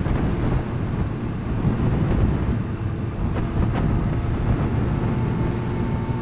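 Yamaha R6 motorcycle riding at road speed: heavy wind rushing over the camera microphone over the steady low drone of the engine.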